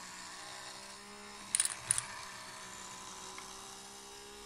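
Toy Tipping Point game's battery-driven pusher shelf motor humming steadily. A few sharp plastic clicks about a second and a half in, as dropped counters land in the machine.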